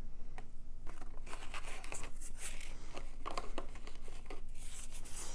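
Packaging being handled: irregular rustling and crinkling with scattered small clicks.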